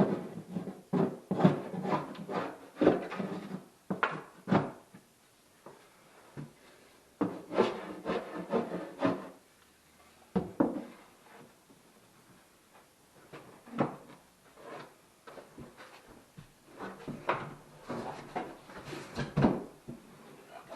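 Irregular knocks, bumps and scraping of hand work with wooden pieces in a small room, coming in bursts with short quiet gaps between.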